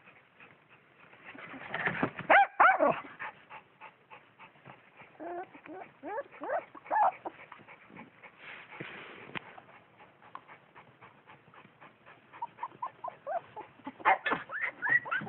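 Puppy whimpering and yelping in short high cries: a loud cluster about two seconds in, a few more midway, and a run of whimpers near the end.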